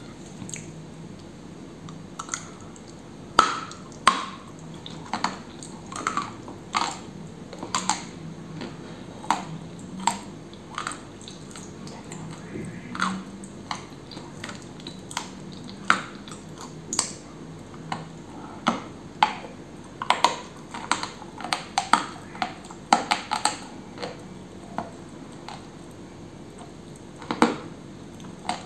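Close-up chewing of white Turkestan edible clay coated in clay paste: irregular sticky crunches and wet mouth clicks, about one or two a second, as the dry, powdery clay is bitten and worked in the mouth.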